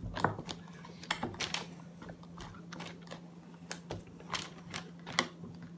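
Slime being kneaded and stretched by hand, giving irregular little clicks and pops, a few a second. A faint steady hum runs underneath.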